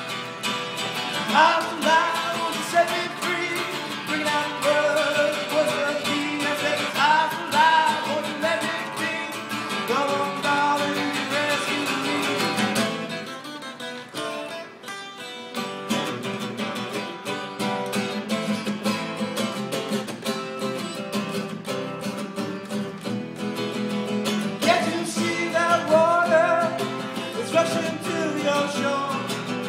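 A man singing to his own strummed acoustic guitar. The voice drops out for several seconds midway, leaving the guitar alone, and comes back near the end.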